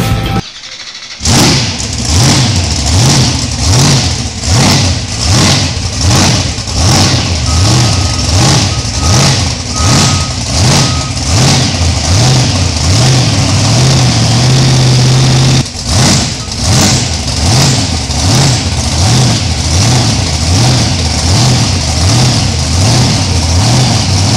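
Monster truck's 1500-horsepower engine being revved in quick repeated throttle blips, about three every two seconds. Midway it is held up steadily for a second or so, drops off suddenly, then resumes blipping.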